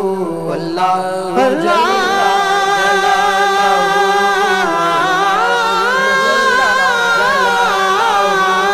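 Male voices singing a hamd, an Islamic devotional hymn, unaccompanied, in a chant-like style. A long held, wavering melodic line comes in about a second and a half in, over a steady low drone.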